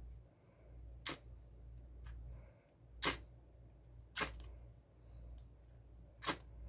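Ferrocerium rod scraped with a ceramic striker, throwing sparks: four short sharp rasps a second or two apart, with a fainter one between the first two.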